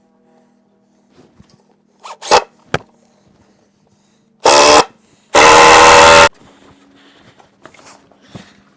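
Power drill run in two bursts, a short one and then one of about a second, both loud. A few sharp knocks come before them.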